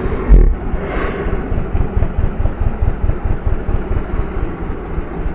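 Kawasaki Ninja 250's parallel-twin engine heard from the rider's seat: the revs fall just after the start with a brief low thump, then it runs steadily at low revs.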